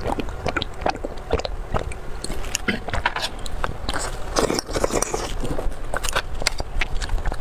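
Close-miked eating sounds: wet mouth smacks, sucking and chewing of soft, saucy food, made of many irregular sharp clicks.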